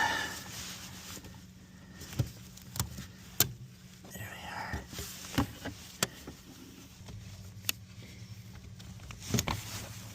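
Scattered sharp clicks and knocks, about seven over the span, from hands working the brake light switch and its wiring connector out from above the brake pedal. A low steady hum runs underneath.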